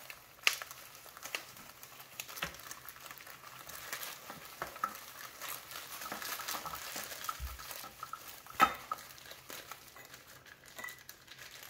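Plastic wrapping crinkling and rustling as small vinyl figures are unwrapped by hand, with scattered light clicks and taps. The sharpest snaps come about half a second in and again about three quarters of the way through.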